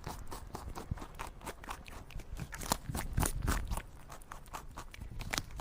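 Rabbit munching, a rapid, uneven run of soft crunches and scrapes over a low rumble.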